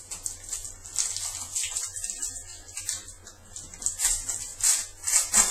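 Trading cards being handled and flipped through by hand: a run of irregular papery swishes and flicks as card stock slides against card stock, loudest about four and five seconds in.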